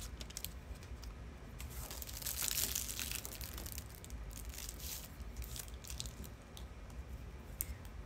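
A snack wrapper being torn open and crinkled by hand: a run of crackles and rustles, densest about two to three seconds in.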